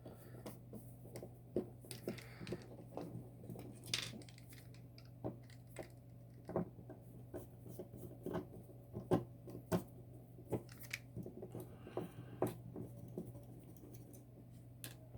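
A small metal lever padlock being cut open with a hand cutting tool: irregular sharp clicks and snips, some close together, over a steady low hum.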